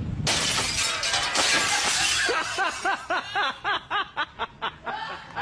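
A DVD player thrown from an upper-storey window crashes and smashes on the ground: a sudden loud crash with breaking noise that lasts a second or two. Then someone laughs hard in quick bursts, about four a second.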